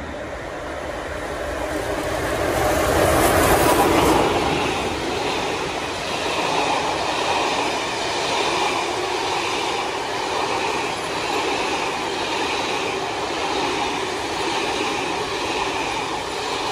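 Steam-hauled train with Royal Scot No. 46100 running through the station. The rush of sound builds to its loudest about three to four seconds in, then settles into a steady rolling rumble of the coaches that rises and falls about once a second.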